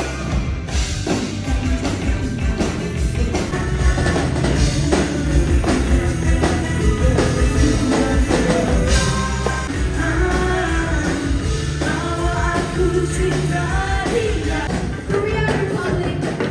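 Rock band playing live at a soundcheck, drum kit and guitar with a lead vocal that comes in a few seconds in, heard through the stage loudspeakers.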